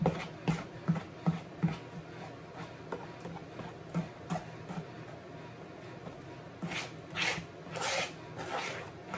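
A spoon stirring thick cornbread batter in a plastic mixing bowl: rhythmic knocks and scrapes of the spoon against the bowl, quicker in the first couple of seconds, with a few longer scrapes near the end.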